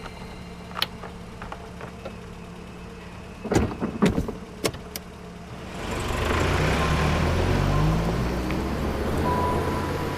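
A few sharp knocks, then a car engine running from about six seconds in, its low note sliding up and down.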